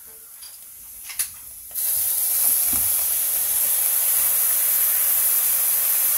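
Stock poured into a hot cast-iron camp oven over a seared pork roast, starting suddenly about two seconds in as a loud, steady sizzling hiss as the liquid hits the hot metal and flashes to steam. A single light click comes just before.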